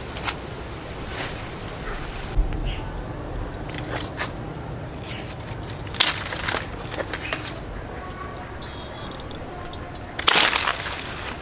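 A steady high insect hum, like crickets, comes in a couple of seconds in, with scattered sharp clicks and a louder short noisy burst near the end.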